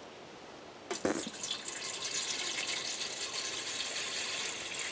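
Creek water poured from a container into a cooking pot, a steady filling splash that starts about a second in after a short knock.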